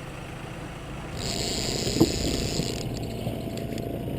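A boat motor runs with a steady low hum. A hiss rises about a second in and stops near the three-second mark, and there is one sharp click about two seconds in.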